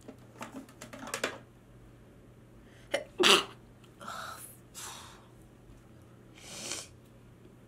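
A woman sneezes once, loudly, about three seconds in, after a few short breaths in; a few softer breaths follow.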